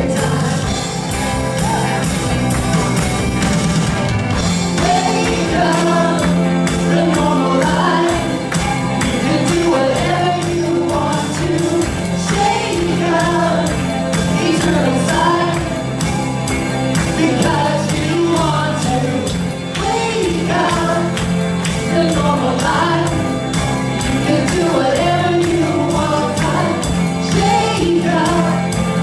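Live worship music: women's voices singing a melody into microphones over an electric guitar and sustained bass notes, with a steady beat.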